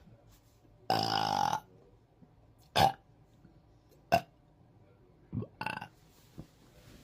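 A woman burping repeatedly: one long, low, drawn-out burp about a second in, then two short sharp burps, and two softer short ones near the end.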